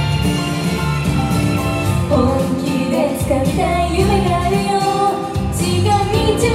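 J-pop idol song with a steady beat, female voices singing from about two seconds in.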